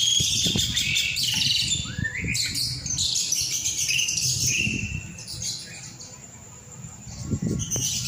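Caged mynas and lovebirds chirping and squawking, many short overlapping calls with some rising whistles. The calls thin out and grow quieter for a couple of seconds past the middle, then pick up again.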